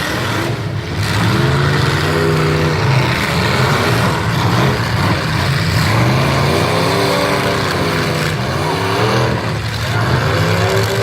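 Several derby cars' engines running and revving together, pitch rising and falling again and again over a constant low rumble.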